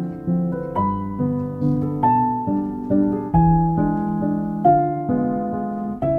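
Background music: a gentle, slow piano melody, each note struck and left to ring.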